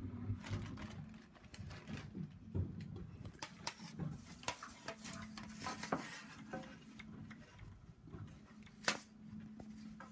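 Handling noise from a phone being carried and fumbled: scattered clicks, knocks and rustles, one louder knock near the end, over a faint steady low hum.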